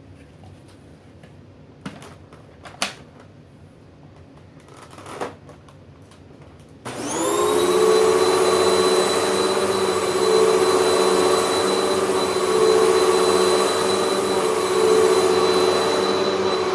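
A few short knocks, then a Hoover WindTunnel MAX upright vacuum cleaner switches on about seven seconds in: its motor spins up with a rising whine and then runs steadily with a high whine.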